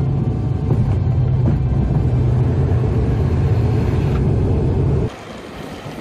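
Cabin noise of an ATR twin-turboprop airliner on its landing roll: a loud, steady low drone of the engines and propellers with runway rumble. It cuts off abruptly about five seconds in to a much quieter, even outdoor noise.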